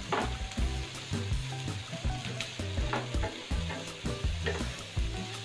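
Chopped vegetables sizzling in hot oil in a nonstick pan on a high flame, with a wooden spatula scraping and tossing them in repeated strokes.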